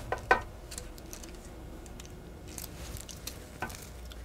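Garlic cloves being crushed in a handheld metal garlic press, with a knife scraping the pressed garlic off the press. A few sharp clicks come in the first half second, then quieter scraping and occasional small clicks.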